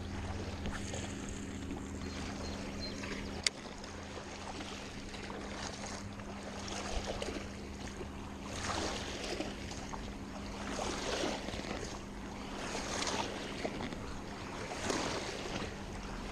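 River water lapping at the bank in swells about every two seconds, over a steady low hum, with one sharp click a few seconds in.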